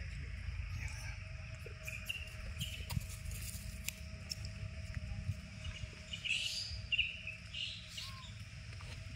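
Outdoor ambience: a steady low rumble with short high chirps scattered through it, the loudest cluster of chirps about six to seven and a half seconds in, and a few light clicks.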